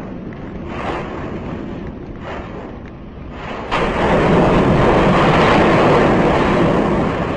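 Rushing, rumbling roar of an erupting volcano's lava fountain, picked up outdoors by a webcam microphone together with wind. The noise swells sharply about four seconds in and stays loud.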